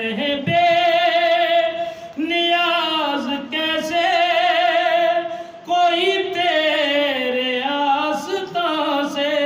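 A man singing an Urdu devotional song unaccompanied, drawing out long held notes with a wavering, ornamented pitch. He sings three long phrases with short breaths between them.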